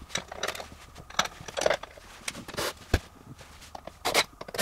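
Handling noise while screws are set into a boat seat's metal pedestal base and a cordless drill is brought to them: scattered short scrapes, clicks and rustles, with one sharp knock just before three seconds in.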